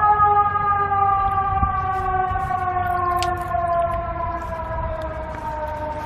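A siren wailing. Its pitch rises sharply right at the start, then slides slowly downward as it gradually fades.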